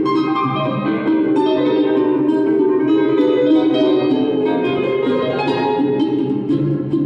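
Ten-string Brazilian mandolin (bandolim) playing a busy, fast plucked melody in a live duo performance.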